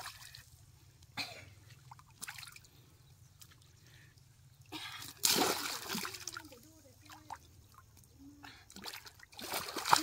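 Shallow muddy pond water splashing and sloshing as hands grope inside a bamboo plunge-basket fish trap set in the mud, in short separate splashes with a louder, longer splash about five seconds in.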